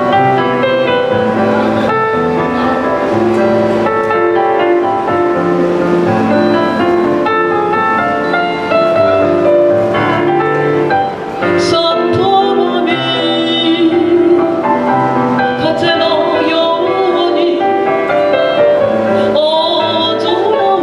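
A woman singing a chanson into a hand-held microphone over piano-led backing music, with held notes and a wavering vibrato in the voice.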